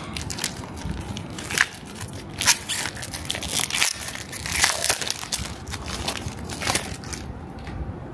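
Foil booster pack wrapper being torn open and pulled apart by hand, a run of sharp crinkles and crackles that dies down about seven seconds in.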